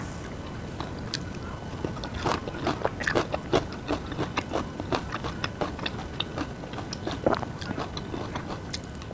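A person chewing and biting food close to the microphone, with many small irregular wet and crunchy clicks that come thicker from about two seconds in.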